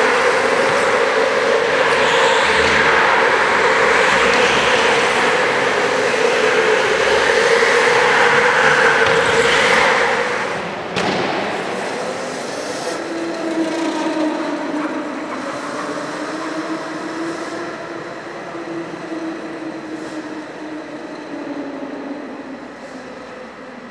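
Go-kart engines running loudly as karts lap the track; about halfway through the sound drops, leaving a lower engine note that fades away toward the end.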